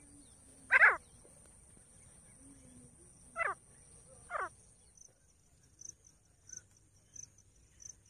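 Insects trilling steadily in a high hum, joined about five seconds in by short regular chirps at about three every two seconds. Over them an animal gives three short falling calls, the first about a second in and the loudest.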